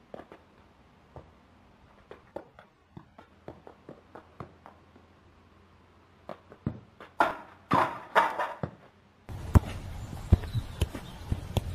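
A football being juggled on foot and knee: soft, irregular thuds of the ball, with a few louder knocks in the second half. Near the end this gives way to steady outdoor background noise with a few sharp knocks.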